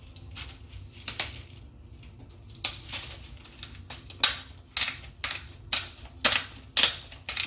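Hand salt grinder being twisted over a pot of sauce. It makes a run of short, gritty crunching strokes, about two a second, that get going a couple of seconds in.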